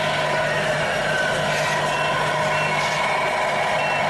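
1/14 scale RC trucks running, a steady mechanical engine-like drone from their motors and sound modules, with a faint reversing beeper starting about two seconds in and beeping roughly every 0.7 s.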